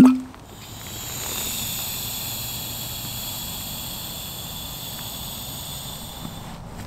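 Air hissing steadily out of the valve of an inflatable sleeping pad as it is pressed and rolled flat, cutting off suddenly near the end. A short sharp knock comes right at the start.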